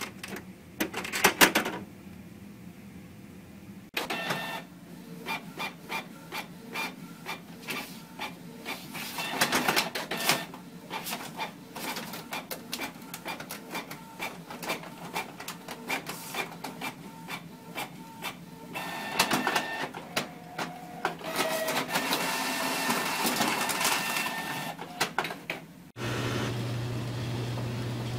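Inkjet all-in-one printer printing: a long, dense run of mechanical clicks and whirs from the print carriage and paper feed, in surges. It opens with a few sharp knocks, and near the end it cuts to a steady low hum.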